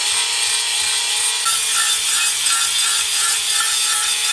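Angle grinder with a stripping wheel grinding the enamel lining inside a cast iron pot: a steady motor whine under a harsh scraping hiss. About a second and a half in, the grinding gets harsher with a regular pulse of about four a second.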